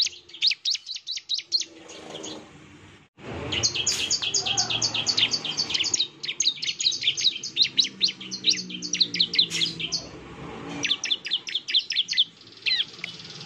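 Bar-winged prinia (ciblek) singing in long rapid runs of sharp, high chips, about eight a second. The runs are broken by short pauses and a sudden cut about three seconds in. This is the fast, sustained "nembak" style of song used as a lure to make other ciblek answer.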